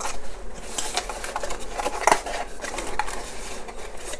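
Cardboard box being opened by hand: flaps and tab pulled and scraped against the paperboard, with scratchy rustling and a sharper snap about two seconds in.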